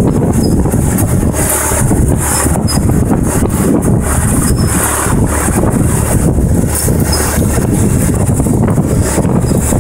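IMT 549 tractor's diesel engine running steadily under load, pulling a Monosem pneumatic precision planter through tilled soil while sowing.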